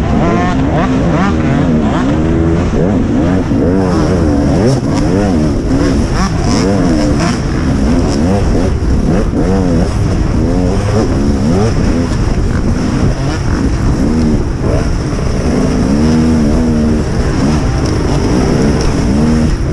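Motocross dirt bike engines racing, revving up and down again and again as the riders accelerate and back off.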